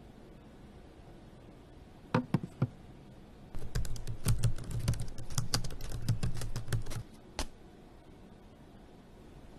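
Typing on a laptop keyboard: three separate key clicks about two seconds in, then a fast run of keystrokes lasting about three and a half seconds, and one last click.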